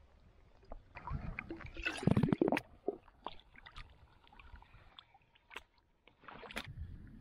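Lake water gurgling and sloshing into a wide-mouth plastic bottle as it is dipped under and filled. The sound is loudest about two seconds in, with small splashes and clicks around it.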